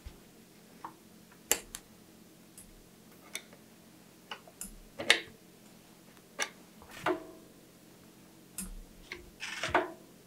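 Irregular small clicks and metallic ticks of a steel brake cable and rear rim-brake hardware being handled on a bicycle frame, as the cable is fed through the cable stop and into the brake arm. About a dozen separate clicks, the loudest about five seconds in and a quick cluster near the end.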